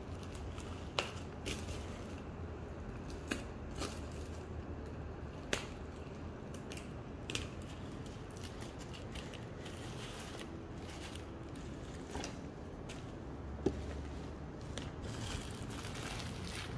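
Bubble wrap being handled and wrapped around a cardboard toy box: plastic crinkling and rustling, with scattered sharp crackles every second or two and a busier stretch of crinkling near the end.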